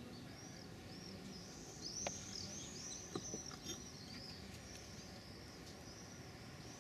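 Small birds chirping: a quick, continuous run of short, high, arched chirps, busiest between about two and four seconds in, with a few soft clicks.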